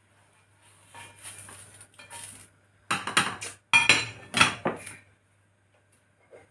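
A plastic spatula scraping a folded crêpe out of a frying pan onto a plate, then several sharp metal clatters as the pan is set back down on the gas hob's grate.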